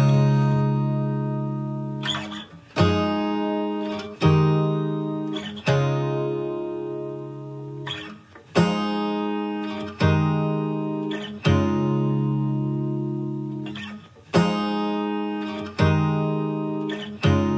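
Background music of strummed chords, each ringing out and fading, with a new chord about every one and a half seconds.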